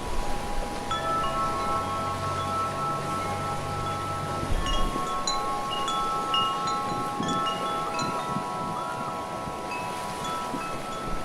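Wind chime ringing in the wind: several long, overlapping ringing tones with scattered short, higher pings. Wind rumbles on the microphone through roughly the first half.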